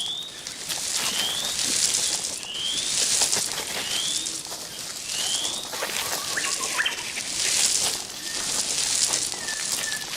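Birds calling: one bird repeats a short rising whistle about every second and a quarter, and other birds give brief notes in the second half. A high hiss swells and fades in waves behind them.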